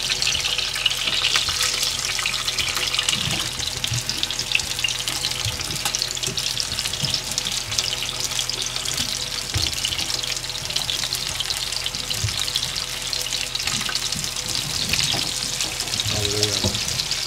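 Floured red mullet sizzling and crackling steadily in hot oil on a griddle pan, with a few soft knocks as fish are turned and laid down.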